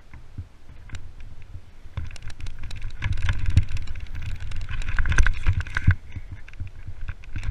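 Mountain bike descending a rough dirt trail at speed: wind rumble on the microphone with frequent clicks and knocks as the bike rattles over bumps and roots, getting louder from about two seconds in.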